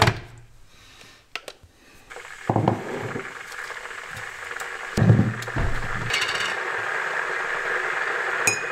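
Russell Hobbs electric kettle heating: a steady hiss comes in about two seconds in and carries on. Over it come a few knocks as a mug and a glass jar are handled on a wooden counter, the loudest about five seconds in, and a short metallic clink near the end.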